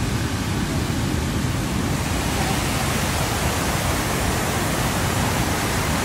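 Rushing white water of a stream cascading over rocks, a steady loud rush.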